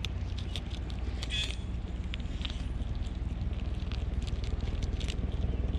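Prairie dogs chewing and tearing kale and carrot: a quick, irregular run of small crunches and clicks over a steady low rumble.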